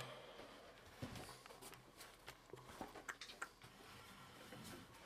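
Near silence in a small room, with a few faint scattered clicks and rustles from a handheld camera being moved.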